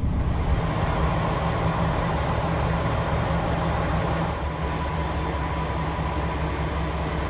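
KiHa 47 diesel railcar idling at a standstill: a steady low engine hum with a faint steady whine above it.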